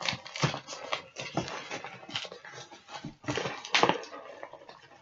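Plastic puzzle cubes and their packaging being handled: irregular clicks, clacks and rustling.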